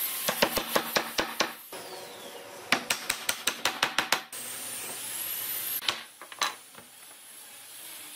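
Hammer blows on pine table legs as they are knocked down into the corners of a wooden frame. The blows come in quick runs of light strikes, a burst near the start and a longer run of about ten in the middle, then two single knocks.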